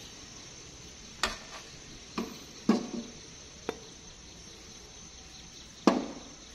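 Metal ladle and spoon clinking against a stainless steel pot and a glass bowl while soup is served, about six sharp knocks that ring briefly, two of them close together near the middle and a loud one near the end.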